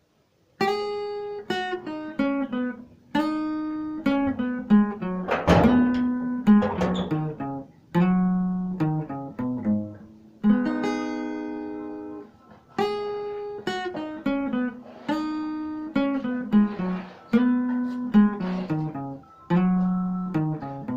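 Guitar playing short phrases on the G-sharp minor pentatonic scale, meant to sound jazzy. The phrases are mostly runs of single notes stepping downward, with a strummed chord about five seconds in.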